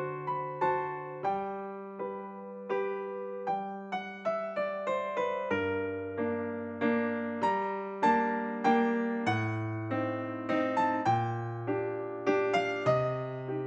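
Background solo piano music, a lively piece of quick struck notes and chords with a bass line.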